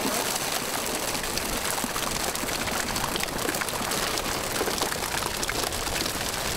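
Dense, steady pattering of a freshly netted catch of live fish flapping and slapping against each other and the wooden hull of a small boat.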